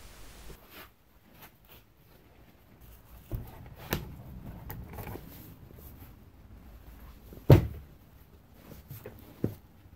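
Handling noises on a cardboard-covered bench: a few knocks and light rustling as a foam seat is moved aside, then one loud thump about seven and a half seconds in as a roll of foam sheet is set down on the cardboard.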